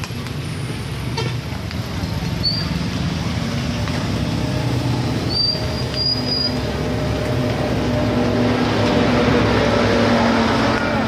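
Steady rumble of street traffic, with a motor vehicle's engine growing louder around the middle and easing off near the end.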